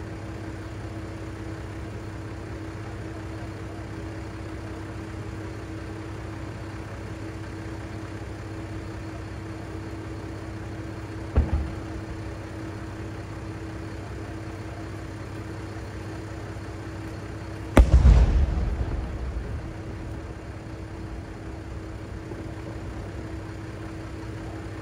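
Fireworks going off: a short sharp bang about eleven seconds in, then a much louder boom about eighteen seconds in that dies away over about two seconds. Underneath, the steady hum of a diesel railcar's engine idling at the station.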